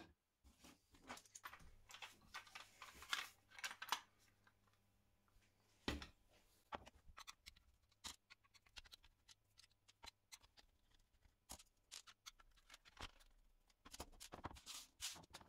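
Quiet handling noise of work with small parts and tools: scattered clicks, taps and short scrapes, busiest in the first few seconds and again near the end, with one duller knock about six seconds in.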